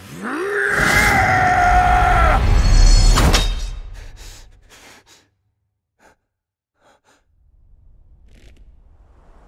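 A man's strained cry, rising at first and then held for about two seconds over a deep rumble, cut off by a sharp hit about three seconds in. A few faint clicks follow, and a low faint rumble near the end.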